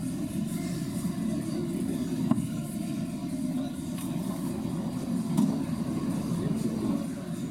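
Steady low rumble of background noise in a large sports hall, with a few faint knocks.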